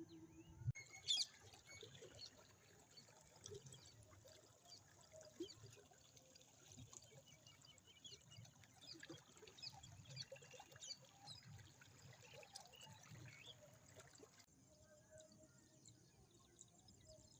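Faint rural morning ambience: many small, scattered bird chirps over a soft outdoor hiss.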